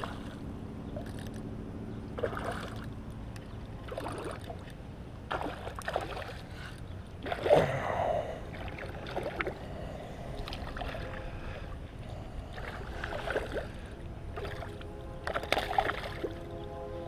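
Hooked fish thrashing and splashing at the water's surface while it is reeled in on a spinning rod, in irregular bursts with the loudest splash about seven and a half seconds in.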